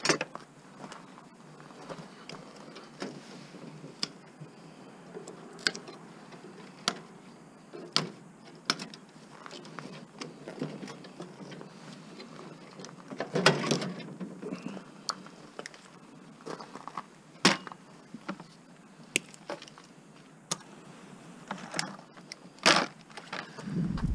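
Irregular metallic clicks, clanks and knocks of hand tools and metal parts as the transformer is cut out of a scrapped over-the-range microwave, with a louder clatter about thirteen seconds in and again near the end.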